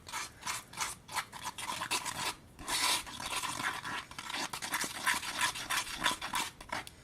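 A utensil scraping around a bowl in repeated, irregular strokes, stirring peel-off face mask and baking soda together into a slime base.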